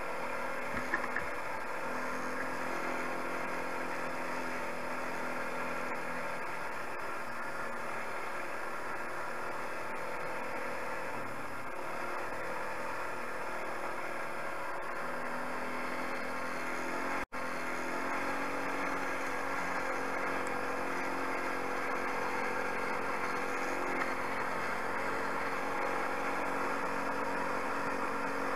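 250 cc Tao quad (ATV) engine running steadily under way on a dirt track, its pitch easing down and back up slightly with the throttle. The audio cuts out for an instant a little past halfway.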